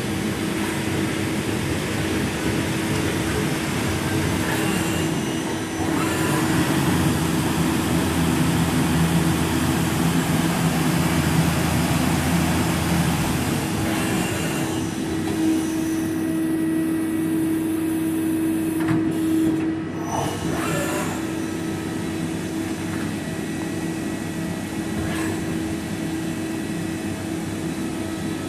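Okuma Howa CNC lathe running with a steady mechanical hum and a constant whine, with a few sharp clicks and knocks along the way.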